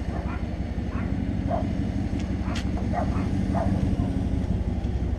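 Ram 1500 pickup driving: a steady low engine and road drone.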